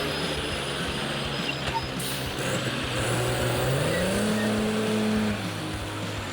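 Heavy log truck's engine running steadily. About four seconds in it revs up, holds for roughly a second, then drops back.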